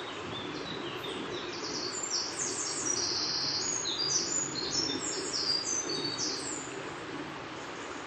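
A songbird singing a long run of quick, high chirping notes that grows louder in the middle and fades near the end, over the steady rush of a river.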